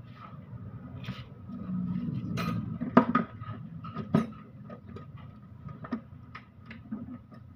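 Hand tools clinking and knocking on metal during gearbox disassembly, with two sharper clanks about three and four seconds in, over a low steady hum.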